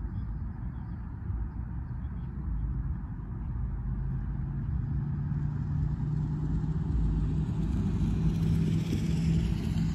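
A motor vehicle passing by, its engine hum and tyre hiss growing louder through the second half and peaking near the end, over a steady low rumble.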